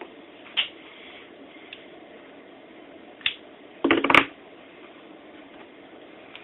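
Wires and small connector parts being handled: a few sharp clicks, then a brief ragged burst of clicking and rustling about four seconds in, over a steady low hiss.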